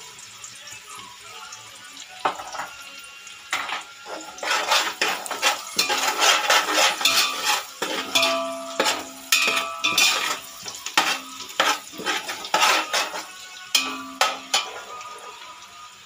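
A metal ladle scraping and clanking against the inside of a metal cooking pot as a frying masala is stirred, the pot ringing briefly after some strikes. A soft sizzle of frying underlies it; the stirring starts about two seconds in and stops near the end.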